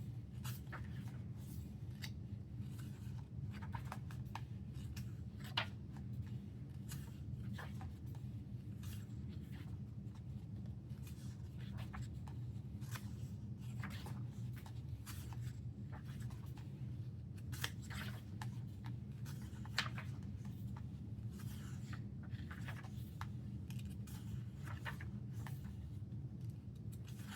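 Thin pages of a K-pop album photobook being turned and handled, with short, scattered rustles and crinkles of paper over a steady low hum.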